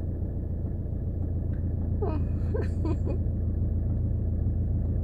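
Steady low rumble of an idling car heard from inside the cabin while it waits in a queue, with a brief voice about two seconds in.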